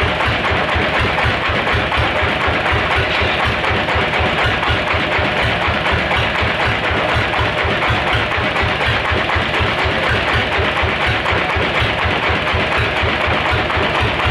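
Sawmill machinery running steadily: an engine with a fast, even low pulse under a dense, steady noise.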